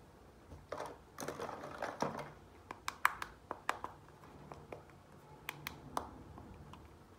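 Small hard plastic toy pieces being handled by hand: a brief rustle, then a run of light, sharp plastic clicks and taps.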